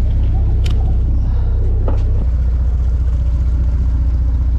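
A fishing boat's engine running with a deep, steady rumble, heard from on board. Its note shifts slightly about two seconds in, and two faint clicks come in the first two seconds.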